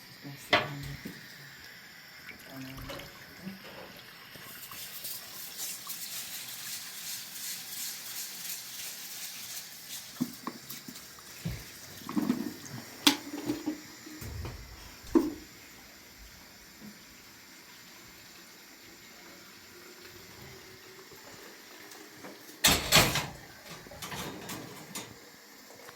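Water running for about five seconds, followed by scattered knocks and clatter, with a louder burst of clatter near the end.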